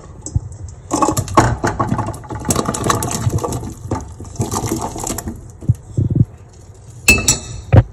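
Chunks of zucchini, carrot and potato tipped from a bowl into a pot of boiling broth: a run of splashes and knocks for about four seconds, then a few sharper knocks near the end.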